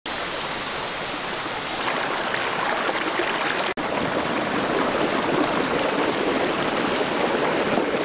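Mountain stream running over rocks, water spilling in small cascades between boulders: a steady rush of water that breaks off for an instant a little before the middle.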